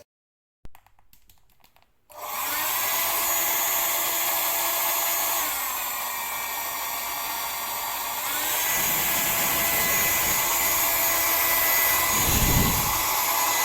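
Amurhey 2400 W travel hair dryer switched on about two seconds in, then blowing steadily with a motor whine. The motor pitch drops for a few seconds partway through and rises again, and a low buffeting rumble comes near the end.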